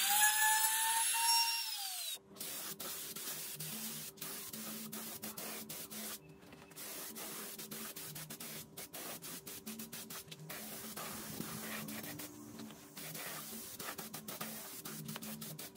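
Compact trim router running as it cuts wood, a high whine that falls in pitch and stops about two seconds in. Then the steady hiss of an air spray gun spraying finish, with scattered clicks.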